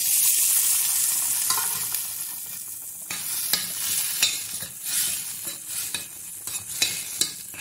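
Roasted semolina (rava) poured into boiling water in a stainless steel kadai: a loud hissing rush that fades over about three seconds. Then a steel spoon stirring the thickening mixture, with irregular scrapes and clicks against the pan.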